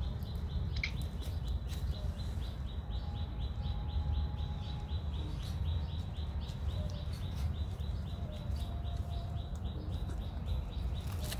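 A high-pitched chirping, even and unbroken at about five chirps a second, over a steady low rumble.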